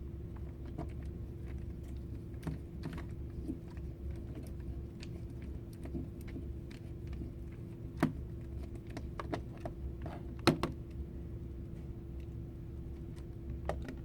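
Light, scattered clicks and taps of a small screwdriver and screws against a Chromebook's plastic screen housing as the last screws are driven in, with two sharper clicks about eight and ten seconds in. A steady low hum runs underneath.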